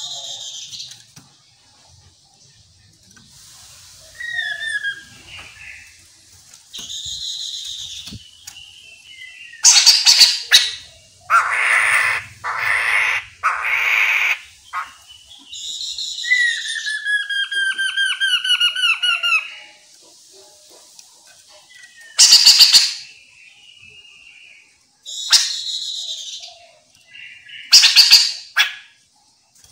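Chestnut-capped laughingthrush singing a varied, loud song: quick runs of repeated notes, a few harsh, noisy calls in the middle, and a long series of whistled notes.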